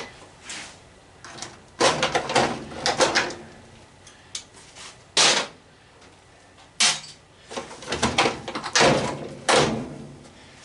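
Knocks, clanks and rattles of a washing machine's sheet-metal cabinet and parts being handled during teardown, in several separate bursts, with clusters about two, five, seven and nine seconds in.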